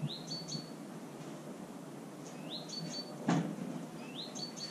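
A small bird calling three times, about two seconds apart: each call a quick rising note followed by two short high notes. A single knock a little past halfway is louder than the calls, over a faint steady hiss.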